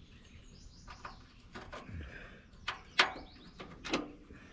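Light metallic clicks and knocks of parts and bolts being handled and fitted back into place during hands-on repair work, the loudest about three seconds in.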